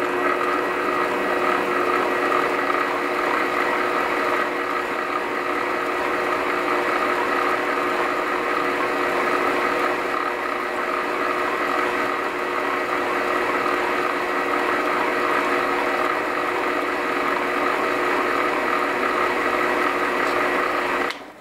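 Small lathe running steadily with a hum and a whine of several fixed tones as it spins a yarn-wrapped hammer handle, then switched off, the sound stopping abruptly near the end.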